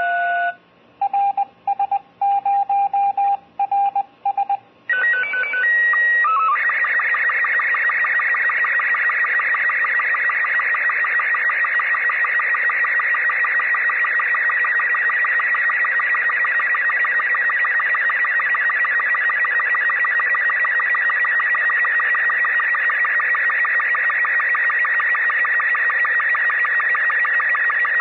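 Slow-scan television (SSTV) picture transmission from the SuitSat-1 spacesuit satellite, an amateur radio signal on 2 metres. A few short beeps come in the first five seconds, then brief steady start tones, and from about six seconds on a continuous fast warbling screech as the image is sent line by line, over a faint hiss.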